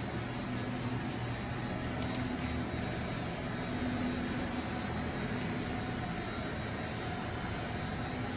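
Steady low machine hum with a faint high whine from a powered-up CNC vertical machining center.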